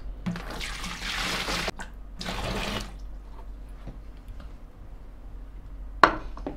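Dissolved sugar water poured from a saucepan into a plastic fermenting bucket, splashing in two pours: a longer one, then a short one. A single knock comes near the end as the pot is set down on the counter.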